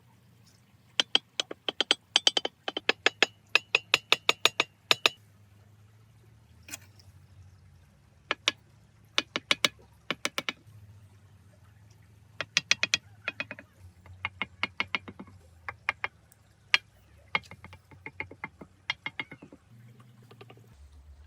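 Runs of rapid, sharp clicks and taps, bursts of hard small objects knocking together, with a faint ringing tone in the first burst.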